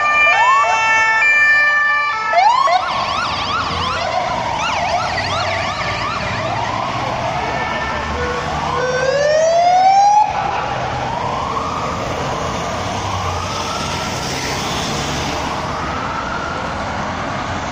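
Several emergency sirens from a police-escorted convoy passing by, overlapping. A stepped two-tone hi-lo siren comes first, then a fast yelp from about two to five seconds in, a steep rising wail near the middle, and slow rising-and-falling wails through the second half, over traffic noise.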